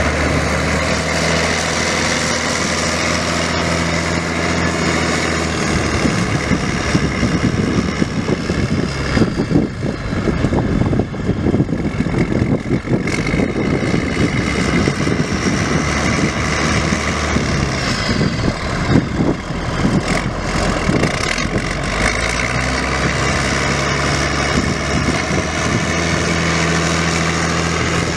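The International six-cylinder turbo diesel engine of a 1982 International I-5288 tractor running at a steady idle. Through the middle stretch it is joined by a busier, uneven noise before settling back to the even idle near the end.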